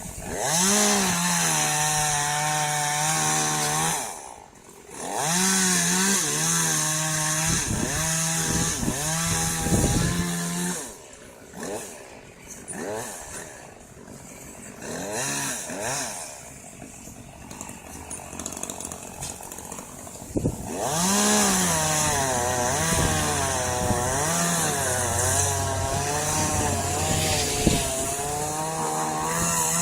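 Two-stroke chainsaw cutting eucalyptus wood, revving up and down under load in long spells. It drops back to a quieter idle for several seconds in the middle.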